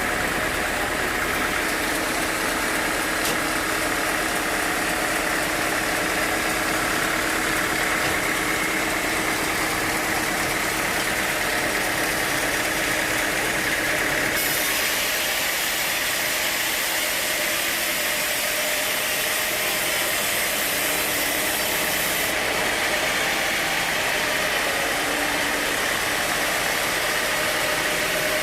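Sawmill machinery running steadily: a continuous mechanical drone with a hiss over it, at an even level throughout.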